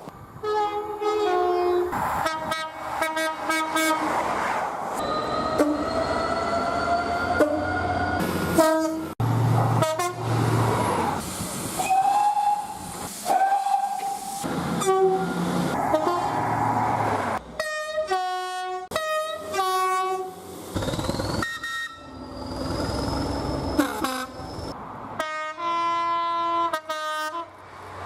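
A string of train horns from different trains, cut one after another: short toots and longer blasts, several of them two-tone horns alternating a high and a low note, with train running noise between them.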